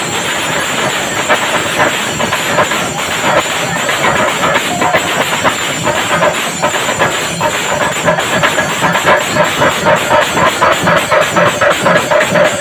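Chenda melam: a large group of chenda drums beaten with sticks, with curved brass kombu horns among them, in a dense continuous roll that settles into a quick, regular beat of about four strokes a second partway through.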